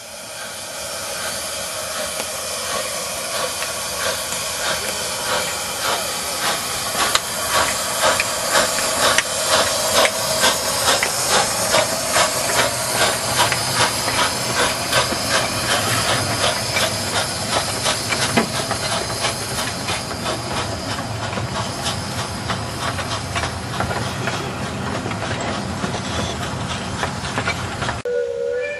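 15-inch-gauge miniature steam locomotive getting under way: a loud, steady hiss of escaping steam, with a regular run of exhaust chuffs, about two to three a second, setting in about a quarter of the way through.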